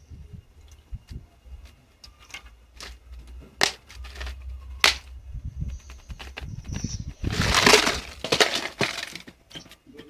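Refrigerator compressor running with a steady low hum while it recovers refrigerant into a cooled gas bottle. Sharp cracks and clinks sound over it, and a loud noisy burst comes about seven seconds in.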